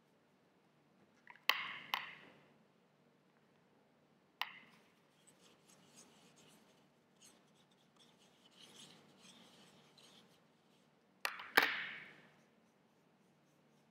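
Plastic paint palette clacking on a table: two sharp clacks as it is lifted, another a few seconds in, then a paintbrush mixing paint in one of its wells with soft, irregular rubbing for several seconds, and a louder double clack near the end as the palette is set back down.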